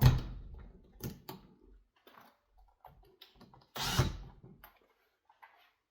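Handling noises from wiring a three-way light switch: a sharp knock at the start, a couple of clicks about a second in, scattered small ticks, and a louder scrape about four seconds in.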